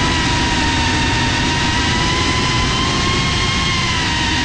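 FPV racing quadcopter's brushless motors and propellers whining at a steady high pitch that rises slightly in the middle and eases off near the end. A rushing wind rumble over the onboard camera's microphone runs underneath.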